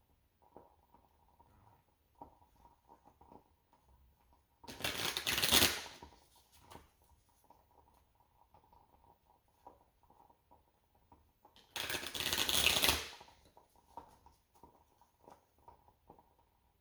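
Deck of tarot cards being shuffled in two brisk riffles, each about a second long, with light clicks and taps of cards being handled in between.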